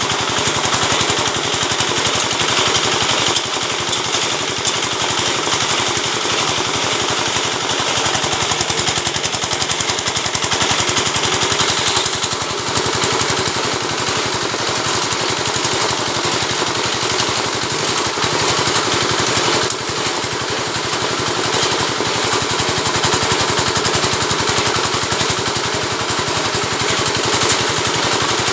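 Oil-palm midrib (lidi) scraping machine running steadily: a loud, dense, very rapid mechanical rattle with a motor running under it, dipping briefly a few times.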